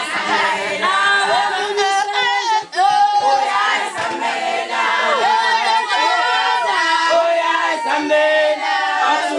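A crowd of voices singing together without instruments, with scattered shouts over the song.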